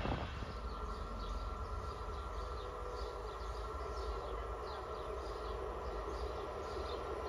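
A train dying away after passing, heard as a steady low rumble with a faint held whine, while small birds chirp over it.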